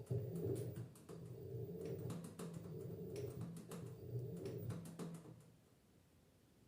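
LG F10B8MD washing machine's drum motor turning the drum for about six seconds, with a low hum and many small knocks and clicks, then stopping.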